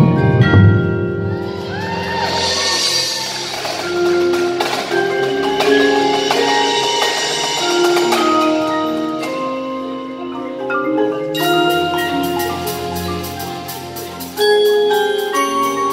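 Indoor percussion ensemble playing: marimbas, xylophone and vibraphone carry ringing melodic lines over low drum hits in the first second. A cymbal swell rises and fades about two to four seconds in. From about twelve seconds a fast, even clicking rhythm joins, and the ensemble gets louder near the end.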